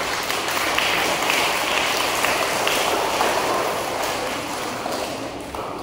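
Audience applauding, the clapping swelling at first and then fading away near the end.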